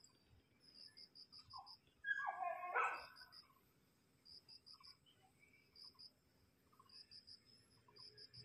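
Faint insects chirping in short repeated trills throughout, and about two seconds in a single animal call lasting about a second, the loudest sound.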